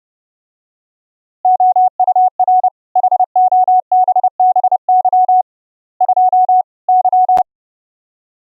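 Morse code sent as a pure sine-wave tone: a run of keyed dits and dahs at one steady pitch, starting about a second and a half in. A sharp click cuts in on the last character near the end.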